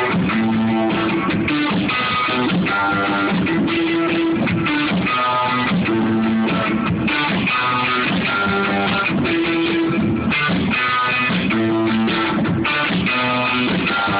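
A band rehearsing, with electric guitar and bass guitar playing steadily in repeating phrases.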